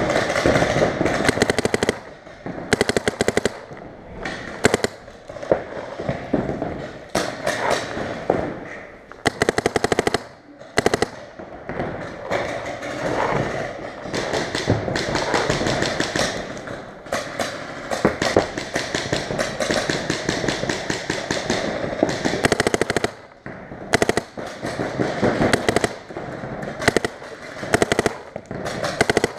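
Paintball markers, among them an Empire Mini, firing in rapid strings of shots that come in bursts every second or so, with a sharp pop on each shot.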